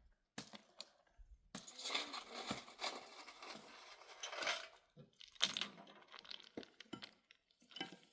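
Faint handling noises: scattered sharp clicks and clinks, with a stretch of rustling, crunching scraping from about one and a half to four and a half seconds in.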